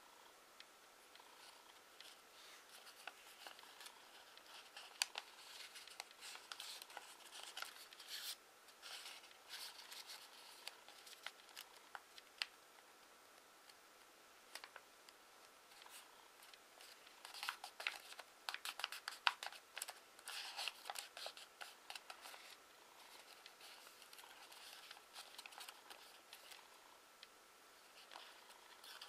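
A square sheet of origami paper being folded and creased by hand: faint crinkling and crackling of paper, busiest a little past the middle.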